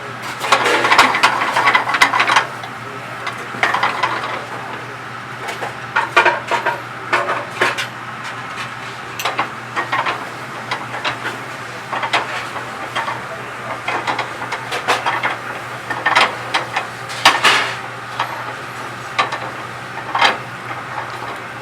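Cooking utensils clattering and scraping against a pot and pans in irregular knocks, over a steady low hum.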